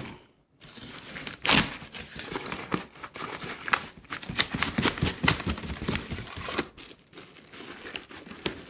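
Packaging being opened by hand: irregular rustling, crinkling and tearing of packing material, with a loud crackle about a second and a half in.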